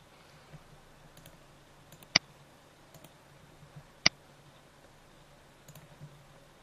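Computer mouse button clicks, two sharp clicks about two seconds apart with a few fainter ticks, as radio buttons on a web form are selected. A faint steady hum lies underneath.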